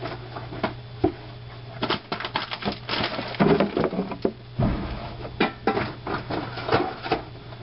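Someone rummaging through a cupboard, hunting for light bulbs: a string of irregular knocks, clatters and thumps as things are shifted about, over a steady low hum.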